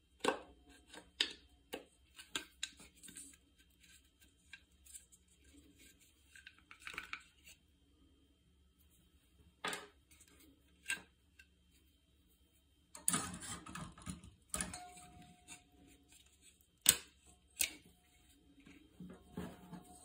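Scattered clicks, taps and knocks of rewind-starter parts being handled on a workbench: the starter pulley and cord are lifted and shifted, and small metal parts are set down. A denser rustling stretch comes about two-thirds through, and the loudest knocks follow just after.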